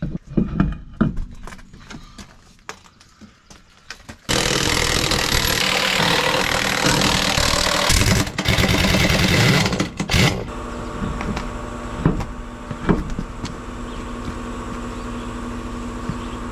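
Impact wrench running hard on a heavy truck wheel's nuts for about six seconds, starting suddenly after a few light clicks and knocks of handling. It is followed by a steady machine hum with a few sharp knocks.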